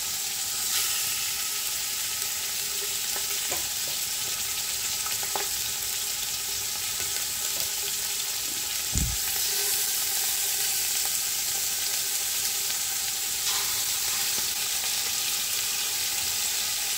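Chunks of beef rib searing in hot oil in a large aluminium pressure cooker, a steady high sizzle, as more pieces are set into the pan with tongs. A few light clicks come early on, and a single low thump about halfway.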